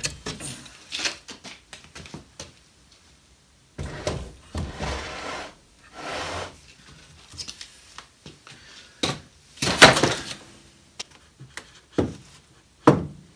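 Heavy wooden boards and an anvil being handled on a workbench: scattered knocks and short wood-on-wood scrapes, the loudest scrape about ten seconds in and two sharp knocks near the end.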